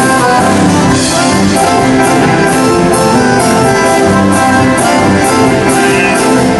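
Music with many instruments playing together over a steady beat.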